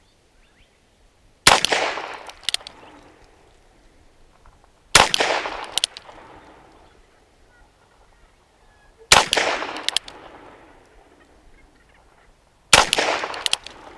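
Four shots from a Ruger Wrangler .22 LR single-action revolver, spaced about three and a half to four seconds apart. Each shot rings out and fades quickly, and a short sharp click follows each one.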